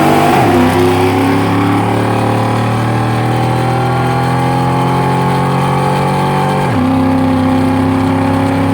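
V8 car accelerating hard through the gears. The engine note climbs steadily and drops with an upshift about half a second in, then again near the end.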